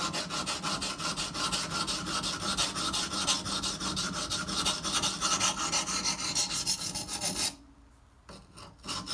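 CTS-204P steel blade of a Microtech Socom Elite ground on a coarse Shapton Pro 120-grit whetstone: a steady run of quick back-and-forth grinding strokes that stops about seven and a half seconds in, then one short scrape. This is coarse grinding on the second side of the edge, to raise a burr.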